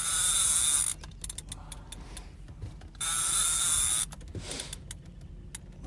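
Fishing reel drag buzzing in two bursts of about a second each, about three seconds apart, as a big white sturgeon runs and pulls line off the spool against the drag.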